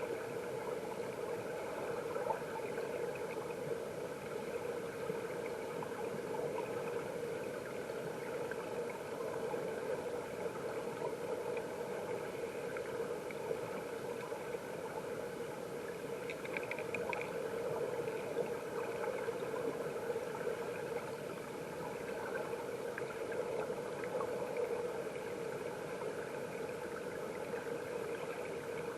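Mountain stream water flowing, heard underwater: a steady muffled rush with faint crackling and ticking.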